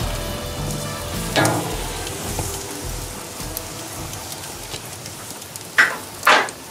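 Sizzling and crackling on a wood-fired grill with bratwursts on the grate, a steady hiss broken by a sharp click about one and a half seconds in and two louder ones close together near the end.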